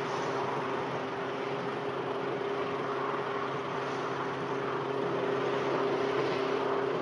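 Car engine running at a steady, unchanging pitch, growing a little louder about five seconds in.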